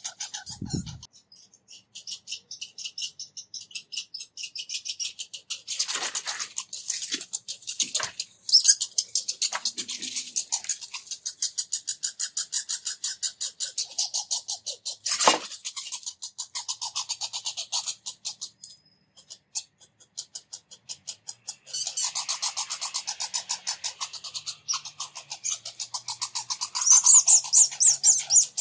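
Red squirrels chattering: long runs of rapid high-pitched squeaks, many a second, broken by a pause about two-thirds of the way in and loudest near the end. A single sharp knock about halfway through.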